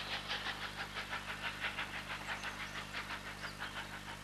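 Steam locomotive exhaust beats, a steady chuffing of about five beats a second that slowly fades as the train pulls away.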